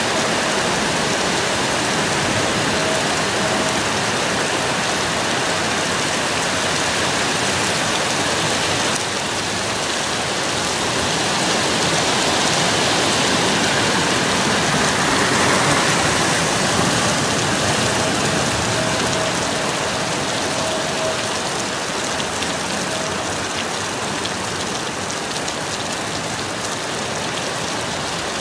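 Rain falling steadily on trees and foliage in a thunderstorm, growing a little louder about halfway through and then easing. A faint steady tone comes and goes twice underneath.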